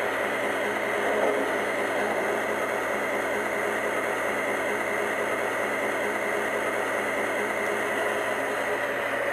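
Sound system of an MTH O-scale diesel locomotive model playing a steady diesel engine idle through its small onboard speaker, with a hiss behind it.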